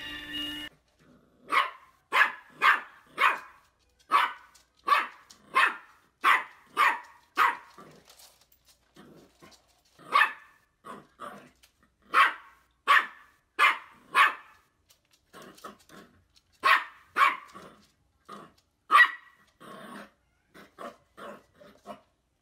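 A puppy barking at its own reflection in a mirror: short, sharp barks in quick runs of four to six, a little over two a second, with pauses and some quieter barks between runs.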